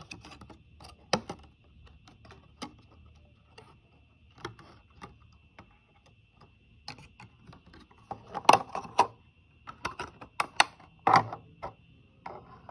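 Clicks and crinkles of a thin clear plastic box being opened and handled as a hair claw clip is taken out of it, coming in scattered bursts that are busiest about two-thirds of the way through.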